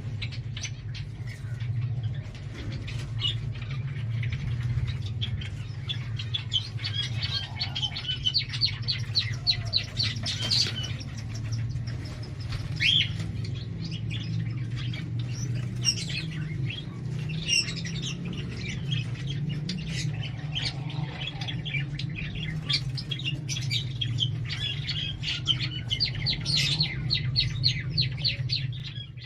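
A crowd of small pet birds in an aviary chirping and chattering without pause, with a few louder squawks now and then, over a low steady hum.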